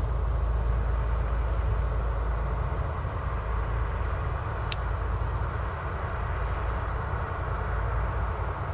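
Steady low drone of a tugboat's diesel engines towing a loaded container barge, with a single sharp click about halfway through.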